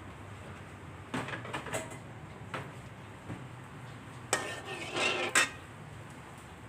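Metal cookware and utensils clinking and clattering: a few scattered knocks, then a busier clatter about four to five seconds in that ends with a sharp ringing clink.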